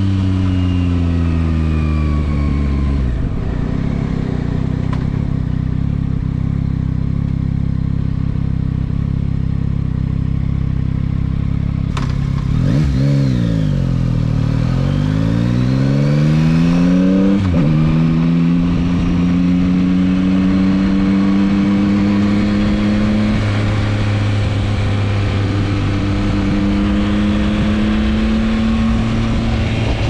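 Yamaha MT-09 SP's inline three-cylinder engine heard on board while riding: the engine note falls for the first few seconds, then holds steady. About twelve seconds in there is a sharp click, the pitch dips and climbs back up, and then it rises slowly and steadily as the bike gathers speed.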